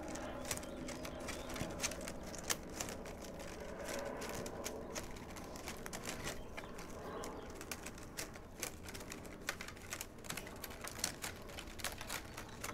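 Plastic baling straps clicking and rustling as they are pulled and worked through a woven basket by hand to tighten the weave, with many irregular sharp clicks.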